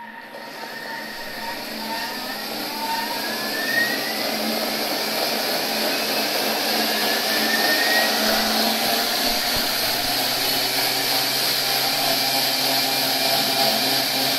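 Thermomix kitchen machine blending steamed vegetables and rice: the motor whine rises over the first few seconds as the speed is turned up, then runs steady and loud at high speed.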